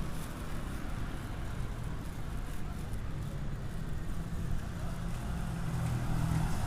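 Road vehicle engine running steadily amid traffic, a low rumble that holds throughout.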